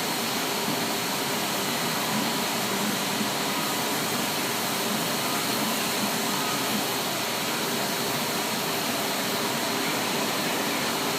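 Industrial machine running steadily: an even rushing noise with a faint high whine over it.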